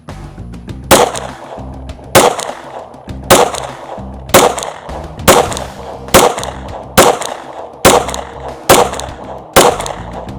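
Ten 9mm shots from a Glock 26 subcompact pistol, fired at first about a second apart and coming a little faster toward the end, over background music.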